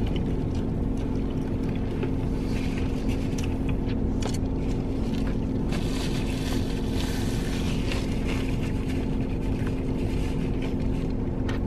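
Steady low hum of a car heard from inside its cabin, with faint scattered crackles of chewing on crispy fried chicken and a rustle of a paper napkin.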